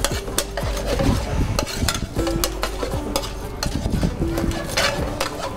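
A metal spoon stirs and turns whole prawns in an aluminium frying pan, with repeated clinks and scrapes against the pan over the sizzle of the prawns frying in hot oil.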